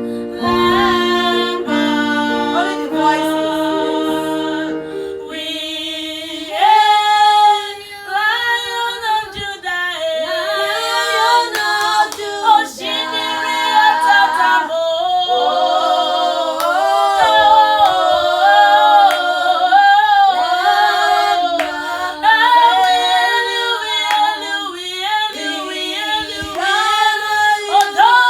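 Female voices singing a gospel worship song together in harmony. The first few seconds are steady held chords, then the voices move through the melody with bending, sliding pitch.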